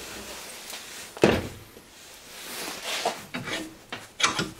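Metal handling knocks at a bench vise: one sharp clunk about a second in, then a few lighter clicks near the end as the riveted steel channel is gripped in the vise jaws.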